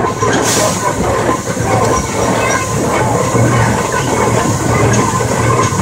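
Climax geared steam locomotive running, with a steady hiss of steam and a dense mechanical clatter of its running gear and wheels on the track.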